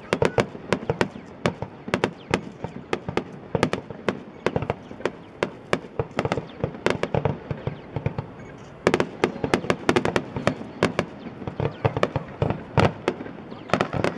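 Aerial fireworks shells bursting in quick succession: a continual run of sharp bangs and crackles, several a second, with a denser, louder volley about nine seconds in.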